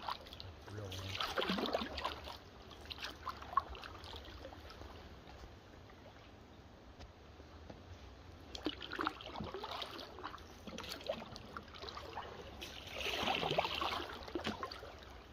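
Canoe paddle strokes in still swamp water: the swish and trickle of water off the blade in a few separate strokes, the loudest near the end, with a few light clicks in between.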